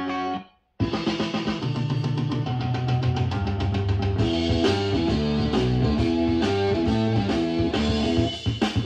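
Guitar-led music with drums played back through a Fountain AF-1250 vintage amplifier. A held chord cuts off about half a second in, and after a short silence a new passage starts with fast strummed guitar and drums.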